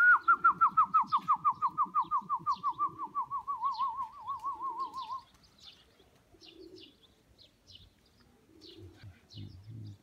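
A person's long warbling whistle, its pitch wobbling about six times a second and sliding slowly down, lasting about five seconds. Pigeons coo and chirp faintly after it.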